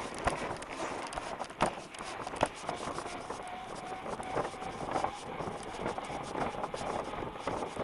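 Mountain bike ridden at speed, heard from a head-mounted camera: wind on the microphone and a steady rattle of the bike, with three sharp knocks in the first two and a half seconds as it comes off a metal grating bridge, then a faint steady hum.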